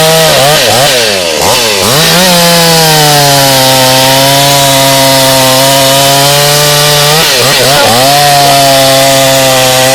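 58 cc Kraft Hart two-stroke chainsaw running at high revs, its pitch dipping and swooping back up twice, about a second in and again about seven seconds in.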